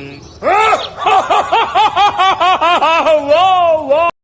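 A rapid run of short, high-pitched cries, each rising then falling in pitch, about four a second, cut off abruptly near the end.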